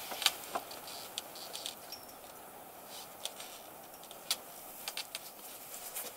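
Scattered light clicks and rustling of handling noise as a cloth sheet is pulled back and a plastic bag is handled on a metal-framed bed.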